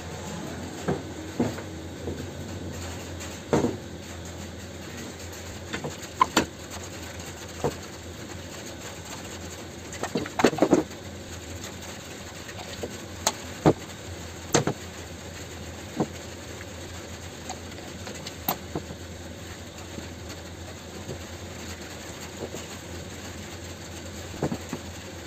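Scattered clicks and knocks of hard plastic and metal parts being handled and set down while a Stanley circular saw's motor is taken apart, the loudest cluster about ten seconds in, over a steady low hum.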